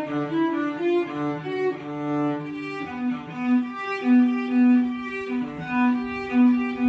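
Solo cello playing a prelude in a flowing line of quick bowed notes. From about three seconds in, the same lower note keeps returning between higher notes.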